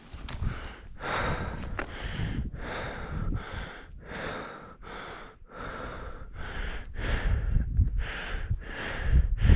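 A skier's hard, rhythmic breathing, about two breaths a second, while skiing powder, over a low rumble of wind and movement on the microphone.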